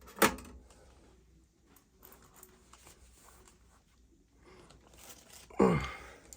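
Handling noises while working on a furnace igniter: crinkling and tearing, with a sharp sound about a quarter second in and a short sound that drops in pitch near the end.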